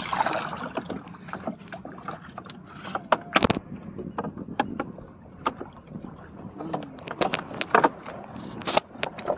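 Water sloshing against a small wooden boat, with scattered sharp knocks and clicks from the boat and its gear as a fishing net is paid out over the side. The loudest knocks come about a third of the way in and twice near the end.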